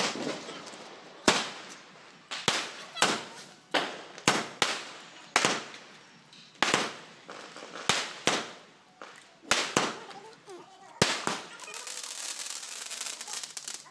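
Diwali firecrackers going off one after another: more than a dozen sharp bangs at irregular spacing, each dying away quickly. Near the end a steady hiss runs for about two seconds under the bangs.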